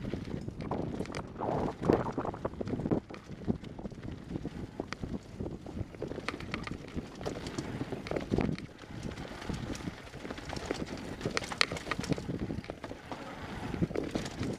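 Mountain bike rattling and clattering down a rocky trail, tyres crunching over loose stones with many sharp knocks from the bumps, and some wind noise on the microphone.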